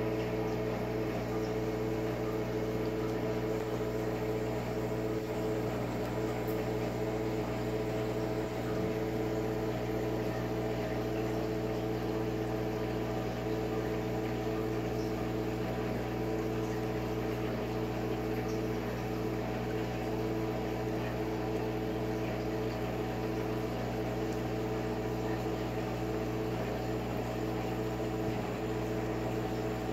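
Steady mechanical hum of a small motor running, several fixed tones over a low drone with no change in level.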